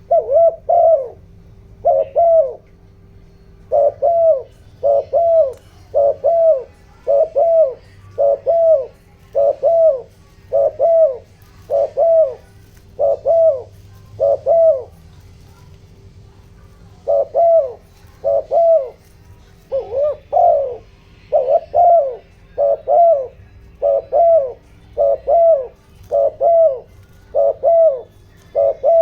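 Spotted dove (cu gáy) giving the rapid, repeated coo that decoy birds use to rouse wild doves. Short phrases come about once a second, with a pause of about two seconds near the middle, over a faint steady hum.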